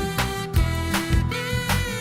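Background music with a steady beat: held, sliding melody notes over regular drum strokes about twice a second.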